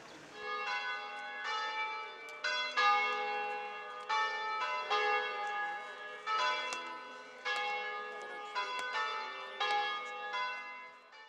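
Church bells ringing a peal: strikes at several different pitches follow one another about twice a second, each left ringing, until the sound cuts off abruptly near the end.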